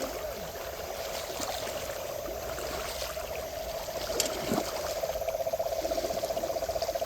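Shallow river water trickling, under a steady, fast-pulsing trill from a calling animal that carries on throughout, with a few small splashes and clicks.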